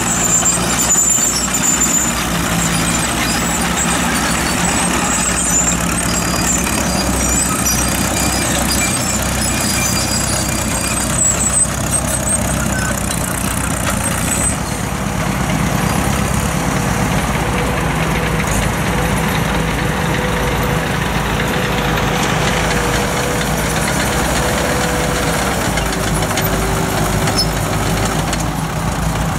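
Crawler tractor engines running steadily under load as they pull ploughs through heavy soil, a continuous low drone.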